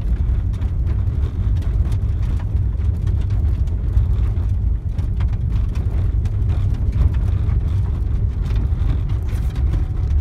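Steady low rumble of a car heard from inside the cabin while driving slowly on a snow-covered road, with faint scattered crackles from the tyres on the snow.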